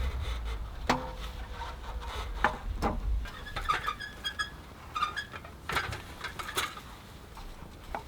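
Several sharp knocks and clicks of hard objects being handled, with short chirps of a bird between them. A low rumble fades out about three seconds in.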